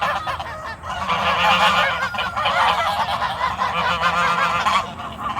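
A flock of geese honking and calling over one another, a continuous noisy clamour.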